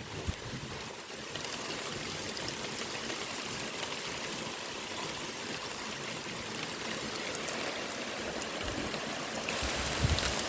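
Steady heavy rain falling during a thunderstorm, with scattered individual drops ticking close by.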